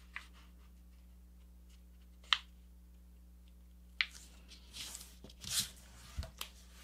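A sheet of paper being creased and handled on a cutting mat. It is quiet at first with a single sharp tap a little over two seconds in, then the paper rustles and slides in short bursts from about four seconds in as it is unfolded and turned.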